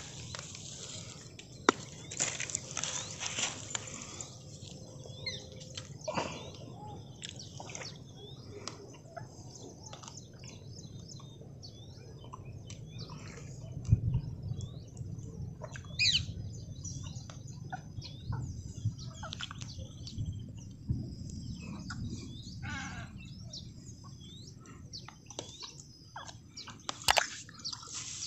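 Small birds chirping over and over in the background, with a few sharp knocks and rustles as a freshly caught fish is handled on the grass.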